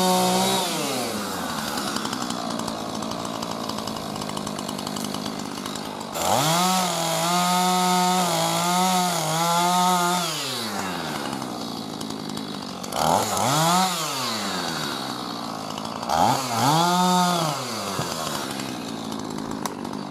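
Small petrol engine on a hand-held power tool, revved up and let back down to idle several times: a long high-rev run in the middle, then two short blips of the throttle.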